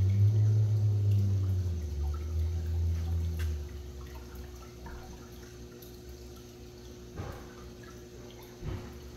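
Saltwater aquarium water bubbling and dripping over a steady hum from the tank's pumps. A loud low rumble in the first few seconds dies away, leaving the quieter water sounds.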